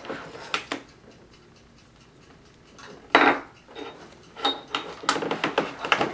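Gear being handled and set down on a wooden table: a string of knocks and clatters, the loudest about three seconds in, with a light metallic clink at about four and a half seconds.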